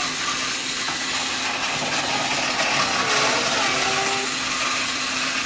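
Battery-powered TrackMaster Skarloey toy engine's small electric motor whirring steadily as it runs along plastic track pulling two wagons.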